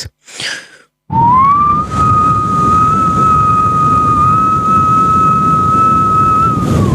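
A beatboxer's voice imitating a hair dryer: a breathy rushing noise with a steady whistling tone that slides up briefly as it starts about a second in, then holds level for about six seconds.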